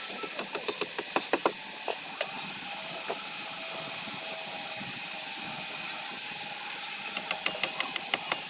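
Sharp knocks or taps over a steady hiss: a quick run of about ten in the first two seconds, then a faster run near the end.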